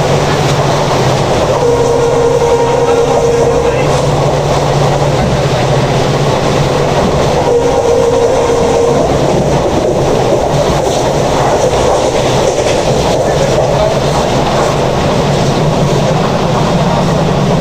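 Express passenger train hauled by a WDP4D diesel locomotive running through at speed: a steady loud rumble and clatter of wheels on rail, with two held horn notes of about two seconds each, near two and eight seconds in.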